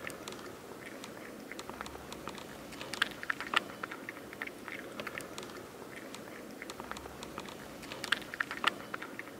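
A cat eating dry kibble: an irregular run of small crunches as it chews, loudest around three seconds in and again near eight seconds.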